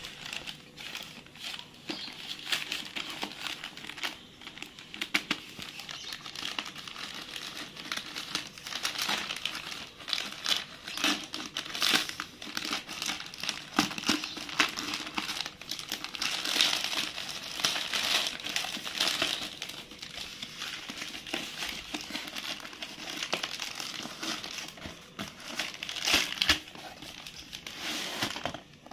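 Plastic packaging crinkling and rustling as a parcel wrapped in black plastic is handled, cut open with scissors and a bubble-wrapped box pulled out. Irregular crackles and sharp clicks throughout.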